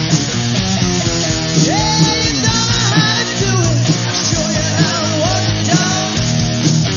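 Rock band playing a loud, driving punk-rock song with electric guitar over bass and drums, including sliding lead notes.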